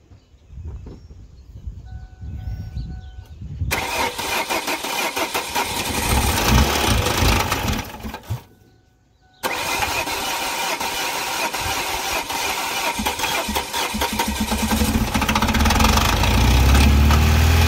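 A Ford Focus four-cylinder petrol engine catches about four seconds in and runs with a heavy, rapid knocking that sounds like a diesel or a tractor. It cuts out about eight seconds in, restarts about a second later and keeps running with the same clatter, louder near the end. The knock goes with aluminium flakes found on the number 4 spark plug, a sign of internal engine damage.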